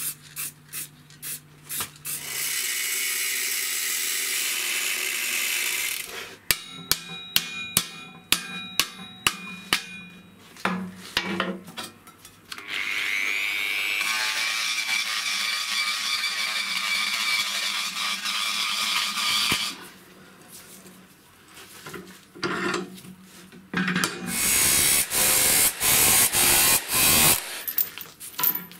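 Handheld power tool working metal, running in several stretches, one of them spinning up with a rising whine and holding steady for about seven seconds. Between the stretches comes a run of about eight sharp metal strikes, each left ringing.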